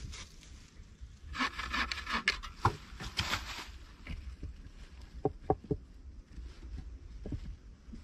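Rough scraping for a couple of seconds, then a quick run of three sharp knocks and one more near the end, over a steady low rumble.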